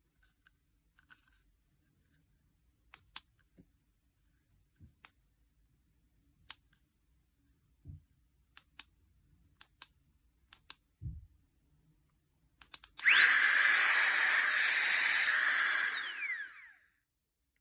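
A Flextail Tiny Pump 2 mini electric air pump starts up, its small fan motor whining quickly up to a steady high pitch. It runs for about three seconds, then spins down. Before it, a series of light clicks and taps, as of handling and button presses.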